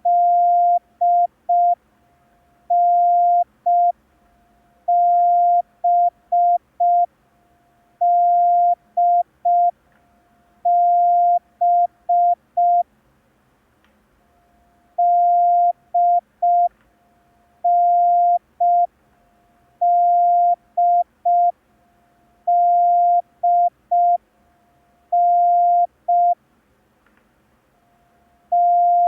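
Morse code practice audio: a single steady beep near 700 Hz keyed in dashes and dots, sent slowly as separate letters from the D, N, B exercise, with a pause of about two seconds in the middle.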